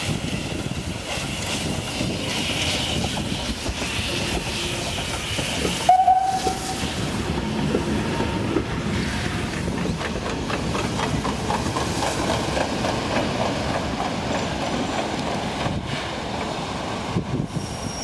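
Steam locomotive hauling a passenger train past, with steam hissing and the wheels clattering on the rails. About six seconds in comes one short whistle blast, the loudest moment.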